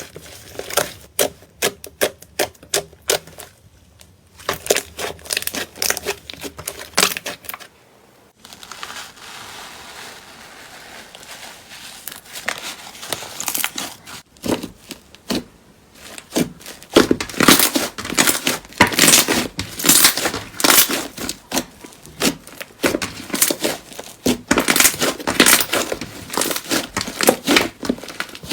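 Slime being squeezed and poked by hand, giving rapid crackling and clicking in bursts, with a softer, smoother stretch in the middle.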